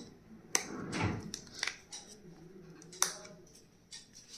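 Stationery and its packaging being handled: a few sharp clicks and a short rustle near the start.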